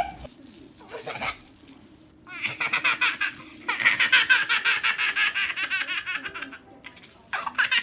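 Baby laughing in long runs of rapid giggles, starting about two seconds in and again near the end.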